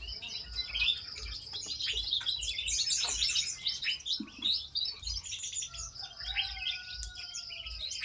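Dense high-pitched chirping and twittering from a mixed group of small aviary birds, with blue-crowned hanging parrots among them. A longer whistled note, falling slightly, comes about six seconds in.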